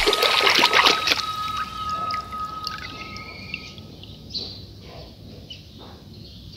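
Water splashing and sloshing in a tub as a hand stirs it, dying away after a second or two into scattered drips and a light trickle. A thin steady high tone runs through the first four seconds and then stops.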